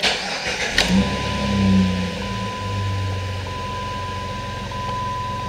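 A 2003 Jeep Grand Cherokee's 4.0 inline-six starting, running up briefly, then settling into a steady idle right after an oil change, before the fresh oil has built pressure. A steady dashboard chime tone beeps in long repeated segments over the idle.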